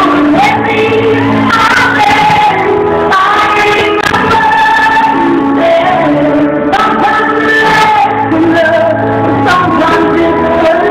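Live music: a woman singing long held notes that bend in pitch, with keyboard accompaniment.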